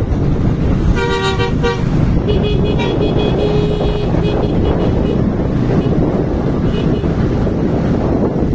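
A vehicle horn sounds over heavy wind noise on the microphone and traffic rumble. It gives a short broken toot about a second in, then a steady held tone from about two to four seconds in.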